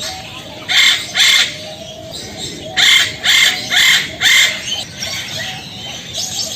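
Male eclectus parrot giving loud, harsh squawks, calling to a female: two in quick succession, then a run of four about half a second apart, and a weaker pair near the end.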